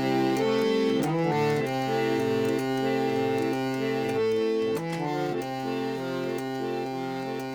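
Electric chord organ playing held, reedy chords that change about every second, growing gradually quieter over the second half.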